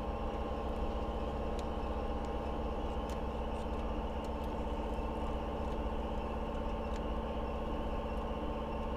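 A steady mechanical hum holding several fixed pitches over a low rumble, with a few faint scattered ticks.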